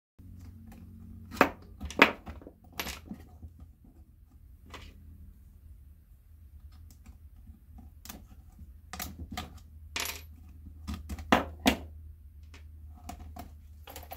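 Small screws and RC truck parts being handled and set down on a wooden workbench while the truck's shocks are taken off: irregular sharp clicks and light knocks, a few louder ones near the start and around two-thirds of the way through. A steady low hum runs underneath.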